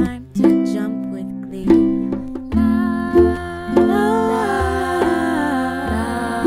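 Background music: repeated plucked-string chords, joined about two and a half seconds in by a fuller arrangement with a wavering lead melody.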